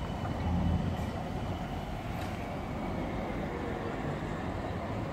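Electric tram moving off along its track, a low rumble of wheels and running gear that is strongest in the first second and then eases as it draws away.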